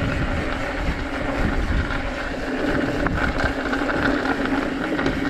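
Steady wind rush on an action camera's microphone with a heavy low rumble, mixed with a mountain bike's tyres rolling over a dirt trail.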